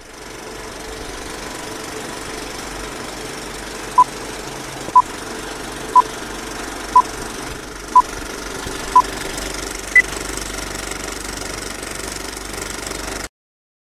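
Film-countdown sound effect: an old film projector running steadily, with six short beeps one second apart and then a single higher-pitched beep. The sound cuts off suddenly near the end.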